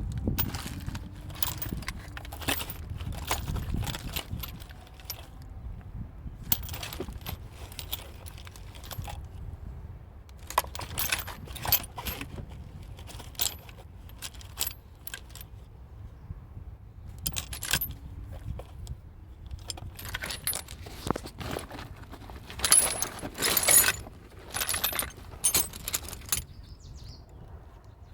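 Metal hand tools and parts clinking and rattling in short bursts of sharp clicks during shock absorber replacement, loudest a little after twenty seconds in, over a steady low rumble.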